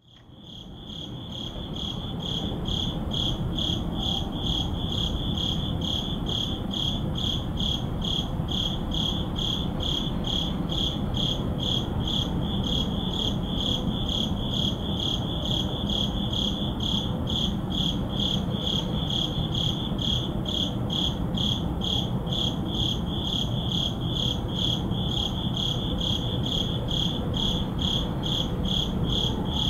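Crickets chirping at night in a steady, evenly spaced rhythm, fading in over the first two seconds, over a low background hum.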